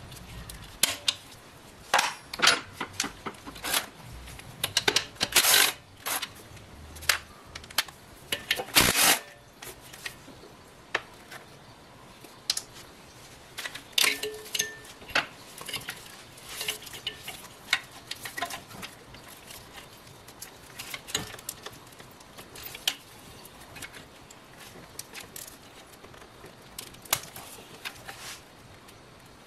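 Hand tools clinking and clicking against metal parts as a wrench works nuts loose on an alternator in an engine bay. The clicks are sharp and irregular, busiest in the first nine seconds or so, with a short metallic ring about a quarter of the way through.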